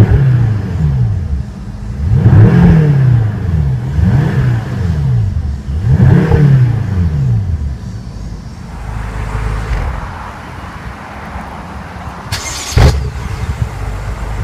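2015 BMW M6 Gran Coupe's 4.4-litre twin-turbo V8 revved while the car stands still: about four quick blips, each rising and falling back, before it settles to idle. A single sharp knock near the end.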